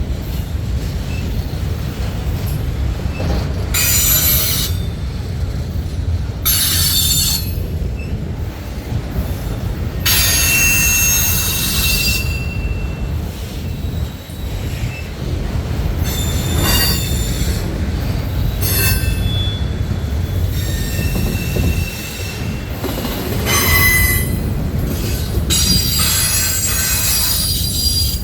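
Freight train cars rolling past with a steady low rumble, with repeated bouts of high-pitched steel wheel squeal, each lasting up to a couple of seconds, as wheel flanges grind against the rail.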